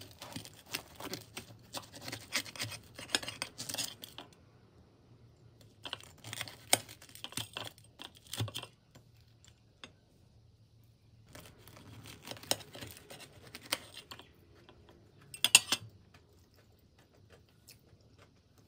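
Knife sawing through the crisp, crumb-topped crust of a bread on a plate, a dense crackling crunch in three long spells separated by short pauses, then one short, louder crunch.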